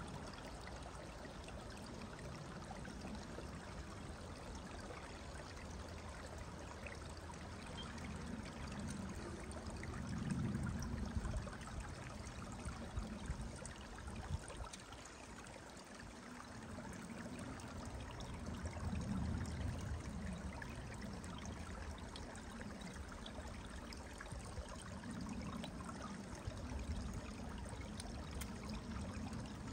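A stream running steadily, a continuous rush of flowing water.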